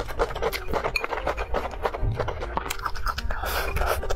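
Close-miked eating sounds: a person chewing a mouthful of food with a quick run of wet smacks and clicks.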